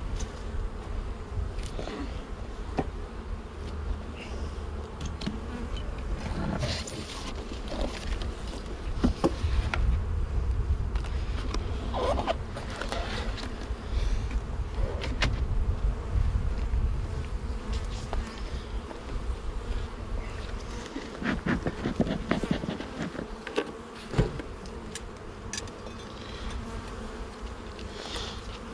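Honeybee colony buzzing steadily around an opened hive, with scattered clicks and knocks.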